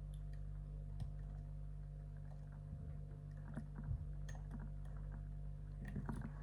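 Faint, scattered clicks of a lock pick and tension wrench working the pins inside a pin tumbler lock cylinder, over a steady low electrical hum.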